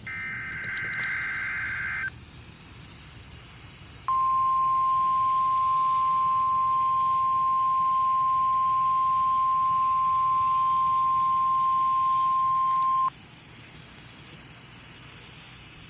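NOAA Weather Radio test heard through a weather radio receiver: a two-second burst of warbling digital header tones, then radio hiss, then the steady 1050 Hz warning alarm tone held for about nine seconds and cut off sharply, followed by hiss. The alarm tone is the signal that automatically activates weather radio receivers for watches and warnings.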